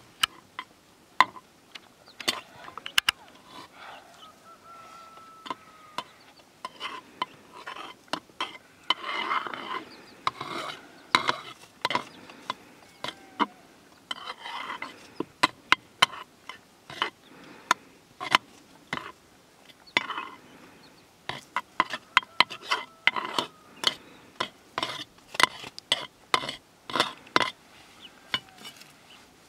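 Ladle stirring a cooking pot over a wood fire, giving irregular sharp clicks and knocks against the pot.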